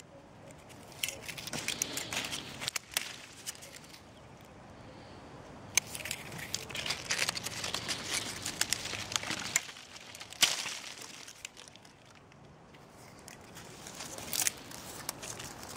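Dry, frost-killed citrus branches and leaves crackling and crunching in irregular bursts of sharp snaps, with a louder crack about two-thirds of the way through.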